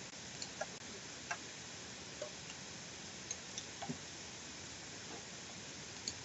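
Faint, irregular clicks of a computer mouse, about eight of them, over a steady low hiss.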